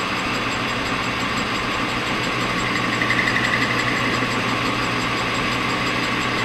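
Metal lathe running with its chuck spinning a stainless steel rod as the tool faces off the rough, band-sawn end: a steady motor and gear hum under the noise of the cut. A brief pulsing high-pitched tone comes in about three seconds in.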